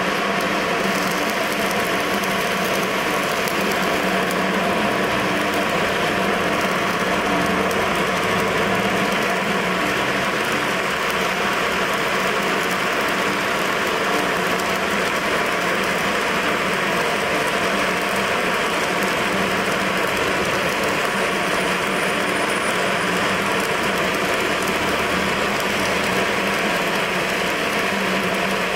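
Stick welding arc crackling and hissing in one continuous, steady run as the electrode burns along the joint.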